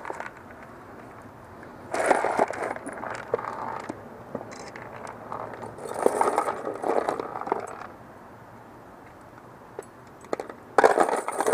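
Metal clinking and scraping in three bursts of a second or two each, full of sharp clicks, with quieter stretches between.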